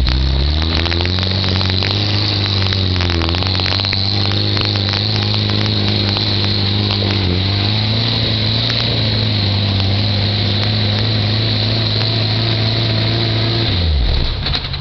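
Willys Jeep engine working hard under load on a muddy uphill climb: the revs rise in the first second, dip briefly twice, hold steady, then fall off suddenly near the end. A scatter of clicks and knocks runs through the first few seconds.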